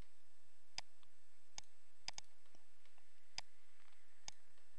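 Computer mouse buttons clicking about six times at uneven intervals, two of the clicks in quick succession a little after two seconds in, over a faint steady hiss.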